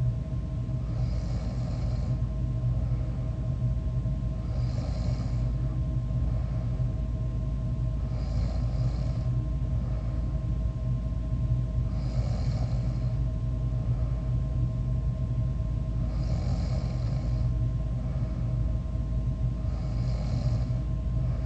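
A sleeping person snoring, one snore about every four seconds, six in all, over a steady low hum.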